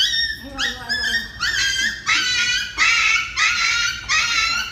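Small brown poodle yelping and crying, a rapid string of short high-pitched cries at about two a second.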